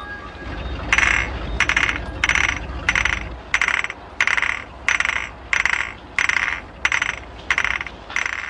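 A sharp, crackling rattle made of rapid clicks, repeated in short even bursts a little under twice a second, starting about a second in, over a low rumble.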